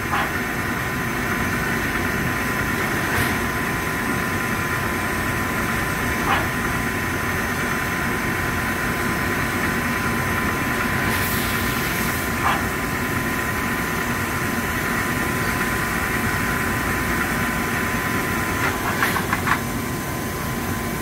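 Traub TNL-26 CNC Swiss-type lathe running a hex-milling operation on the main spindle: a steady machine whir with a constant high whine, a few faint clicks, and a short hiss about eleven seconds in.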